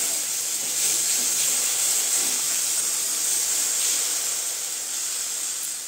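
Spiced tomato, ginger and green chili paste frying in mustard oil in a kadai, sizzling steadily as it is stirred with a wooden spatula: the masala being fried down before water is added.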